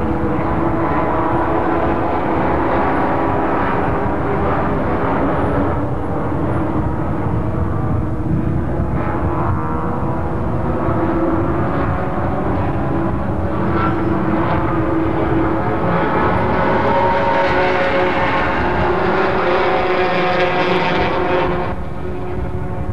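Several racing sedans' engines running hard at speed, their pitch rising and falling as the cars accelerate, shift and pass. The sound grows brighter and louder late on, then drops away suddenly just before the end.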